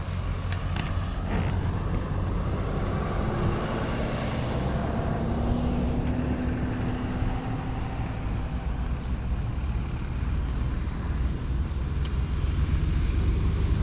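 Roadside traffic noise under a heavy low rumble of wind on the microphone, with a few sharp clicks in the first second or two. A passing vehicle's engine hum swells through the middle and fades.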